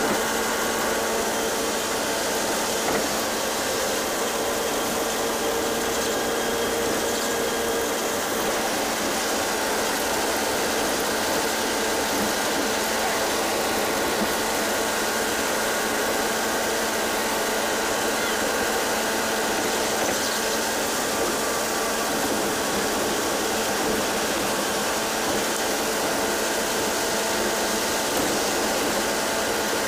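Interior noise of a bus cruising at highway speed: a steady drone of engine and road noise with a few held tones, heard inside the cabin.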